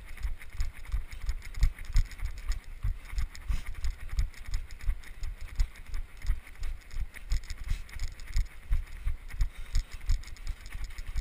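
Running footfalls, a steady train of low thuds at about three a second, picked up through a body-worn GoPro as its wearer jogs.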